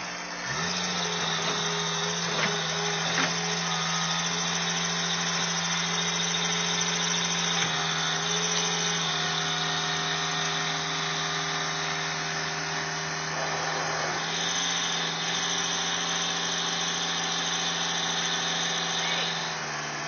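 Skid-steer loader's engine running at a steady speed, an even, unchanging hum.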